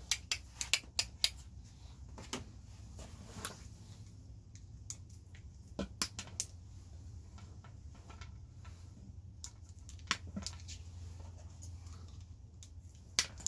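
Diagonal cutters snipping and working thin insulated wire: short, sharp clicks and snips in small clusters, over a low steady hum.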